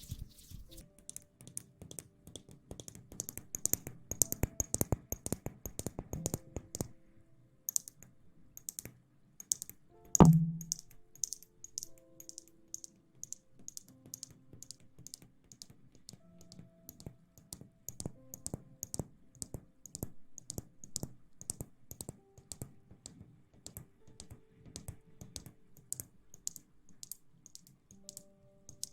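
Close-miked ASMR rustling: a stream of fast, light crackles and clicks, busiest in the first seven seconds and sparser afterwards, with one loud thump about ten seconds in.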